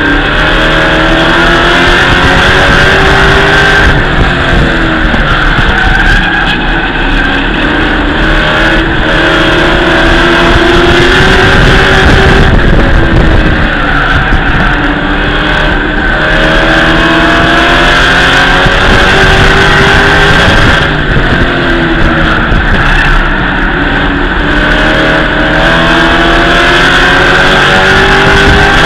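Race truck engine at racing speed, heard from inside the cab. Its pitch climbs for several seconds and then drops back, over and over about every eight seconds, as it accelerates down the straights and lifts for the turns.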